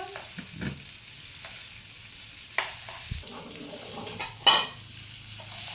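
Instant noodles sizzling in hot oil in a frying pan as they are stir-fried with chopsticks, a steady hiss. A few light clicks from the stirring, with one sharper knock about four and a half seconds in.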